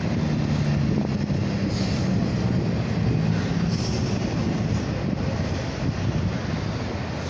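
Norfolk Southern double-stack intermodal freight train rolling past, a steady rumble and rattle of the cars on the rails. A low hum in the first few seconds fades out.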